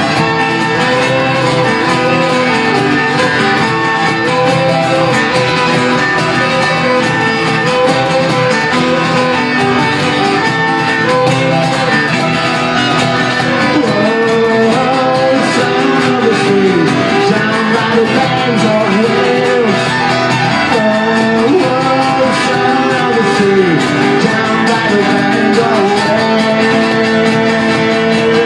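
Live band playing a wordless instrumental passage of the song: guitars with a sliding melodic lead line over them.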